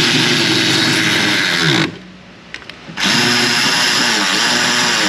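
Cordless power tool running in two spells, driving in the bolts that fasten the engine computer into its bracket. Its motor whine falls in pitch as it winds down about two seconds in, then starts again about a second later.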